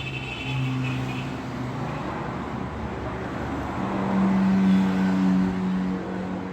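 Road traffic: motor vehicles running past, with engine hum over a steady rush of tyre noise. One vehicle grows louder and is loudest about four to five seconds in.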